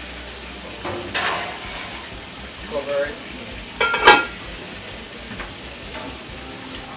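Food frying in a pan on a gas range with a steady sizzle, while a metal spoon stirs and knocks against the pan. There are a few sharp metal knocks, the loudest a ringing clank about four seconds in.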